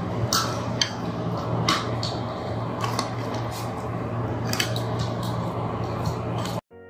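Cutlery clinking against a plate while eating: a handful of sharp, scattered clinks over a steady low hum. Near the end the sound cuts off suddenly and a brief tone follows.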